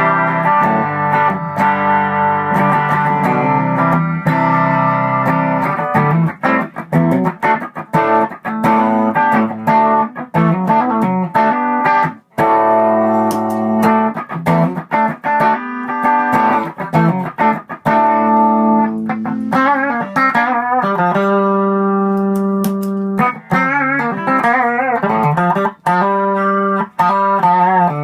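Electric guitar played through an Xotic EP Booster pedal in its unity-gain, warm Echoplex-style setting: chords and single notes ringing out, with wavering, bent notes in the last third.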